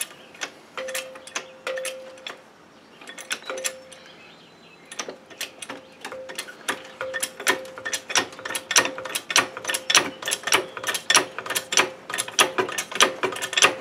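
Hydraulic floor jack being pumped by its handle to lift an ATV's front: a few scattered clicks, then a steady quick clicking of the pump from about five seconds in, with a faint squeaky tone on many strokes.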